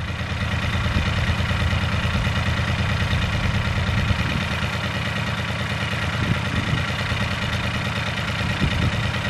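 A steady low mechanical drone, like an engine running at idle, with no change in pitch.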